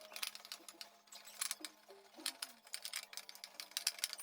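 Rapid, uneven metallic clicking of a 13 mm wrench working the bolts loose on a washing machine's drive assembly.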